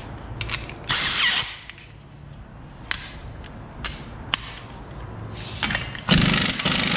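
Impact wrench with a 36 mm socket on a truck's front axle nut: a short burst about a second in, a few light metal clinks, then steady hammering from about six seconds in as it spins the nut off.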